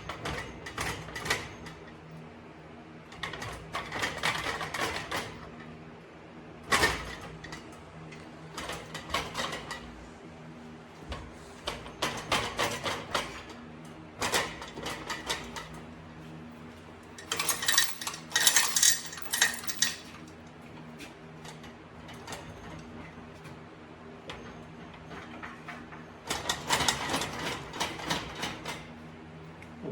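Metal tools and parts clinking and clattering in short irregular bursts during tractor transmission disassembly, over a steady low hum.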